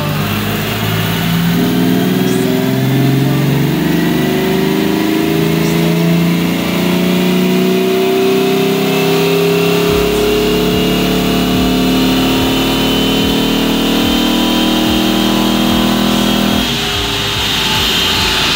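Ford Mustang engine at full throttle on a chassis dynamometer, its pitch climbing slowly through one long pull. About 17 seconds in the throttle comes off and the engine settles to a steadier note.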